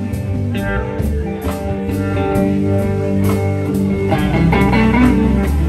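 Live blues band playing an instrumental passage between sung lines: guitar over bass and drums keeping a steady slow beat.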